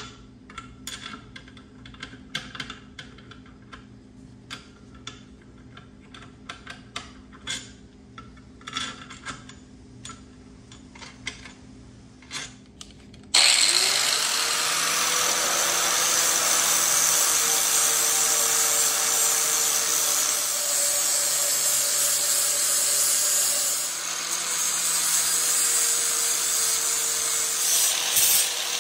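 A handheld power tool starts abruptly about halfway through and runs steadily and loudly on the work. Before it come scattered clicks and light knocks from handling tools and parts.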